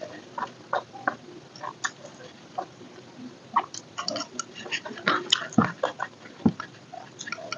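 A person chewing and eating food close to the microphone, with irregular wet mouth smacks and small clicks.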